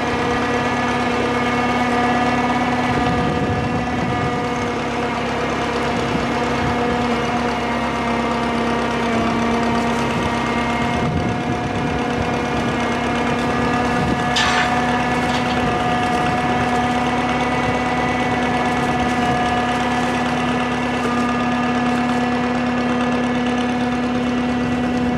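Drott 85RM2 crane's engine running at a steady speed, with a constant, even-pitched hum that does not change.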